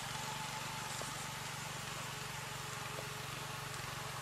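Walk-behind tractor (motoblock) engine running steadily, a low even throb that neither rises nor falls.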